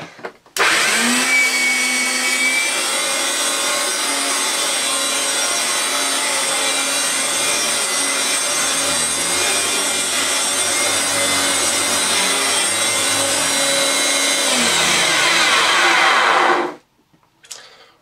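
Hoover Turbopower Autoflex U2198 upright vacuum cleaner (1984) switched on: its motor starts suddenly, runs loud and steady, then is switched off and cuts out sharply near the end. It does not run smoothly, which the owner puts down to a seized bearing or two.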